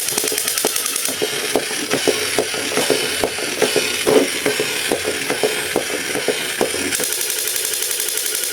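Rapid, irregular clicking and rattling over a steady hiss, the clicks thickest around the middle and thinning out near the end.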